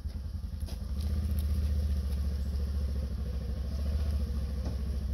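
Side-by-side utility vehicle's engine running at low revs, getting louder about a second in and holding steady as it pulls on a tow strap tied to the fallen tree.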